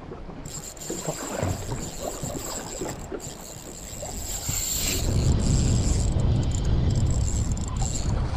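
Wind buffeting the microphone over the sound of the sea around a small boat, the wind rumble growing louder about five seconds in.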